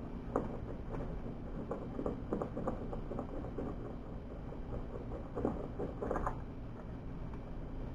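Irregular light clicks and rattles of hand work: small parts and wiring being handled and fitted at a truck's battery box, a little louder around five and six seconds in, over a steady low hum.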